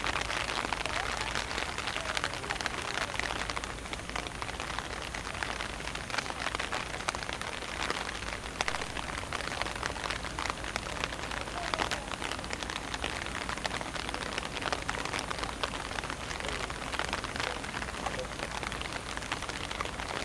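Steady rain pattering on hard surfaces, a dense hiss of many small drop ticks.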